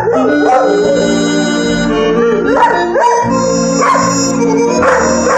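Electronic home organ playing sustained chords while a dog howls along several times, its howls gliding up and down in pitch over the music.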